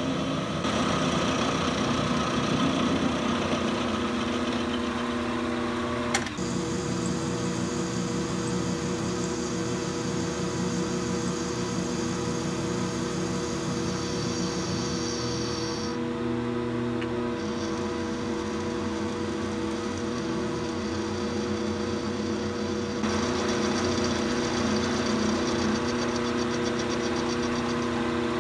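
Vertical milling machine running, its roughing end mill cutting into a metal block: a steady motor hum under the noise of the cut. The cutting noise eases off a little past the middle and comes up louder again about two-thirds of the way through.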